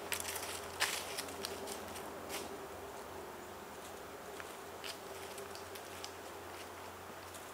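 Footsteps of a hiker walking away on a leaf-strewn paved trail: scattered light crunches and scuffs, a few sharper ones in the first seconds, thinning out as the walker recedes. A faint steady hum lies underneath.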